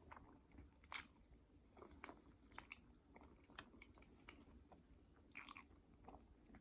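Close-miked chewing: quiet, wet mouth clicks and smacks as food is bitten and chewed, with a sharper bite about a second in and again a little past the middle.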